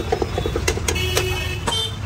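A steel ladle clinking and scraping against an iron wok as chilli chicken gravy is stirred: a few sharp metallic clinks, some with a short ring, over a steady low rumble.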